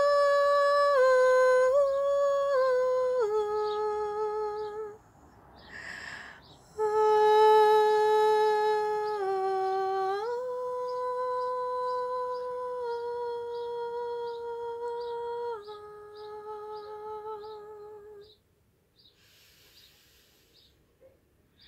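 A woman's voice singing a slow wordless chant in long held notes that step down in pitch. It pauses for a breath about five seconds in, then resumes and fades out about eighteen seconds in.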